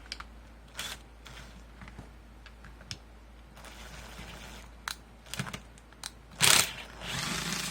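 Hand-tool handling noises: a screwdriver bit on an extension adapter clicking and knocking as it is fitted and pushed into a rotary hammer's housing, with a louder scrape about six and a half seconds in followed by a short rasping noise.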